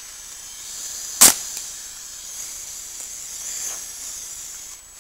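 A Daisy Pumpmaster 760 BB gun, modified to run on compressed air from a hose at 90 psi, fires once with a sharp pop about a second in. A high hiss of air follows and cuts off suddenly near the end.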